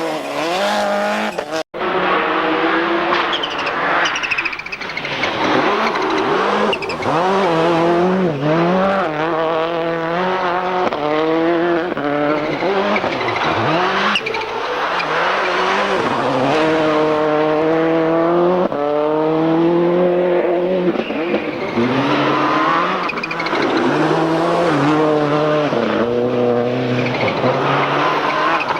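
Subaru Impreza WRC rally car's turbocharged flat-four engine at full throttle, revving hard through the gears with the pitch climbing and dropping at each shift, over tyre noise. There is a brief cut about two seconds in.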